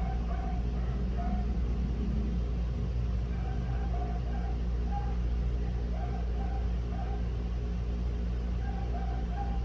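Steady low rumble of neighborhood background noise, with short high notes recurring at irregular intervals. No clear keyboard clicks stand out.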